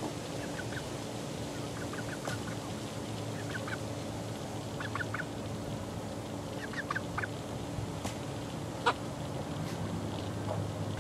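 Eleven-week-old chickens peeping in short, high chirps that come in small clusters of two to four, over a steady low hum. A sharp click about nine seconds in is the loudest sound.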